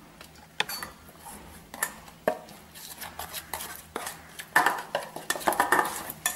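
Metal spoon clinking and scraping against a stainless steel bowl as a thick spice paste is mixed: a few separate clinks in the first half, then quicker scraping and clatter in the last two seconds.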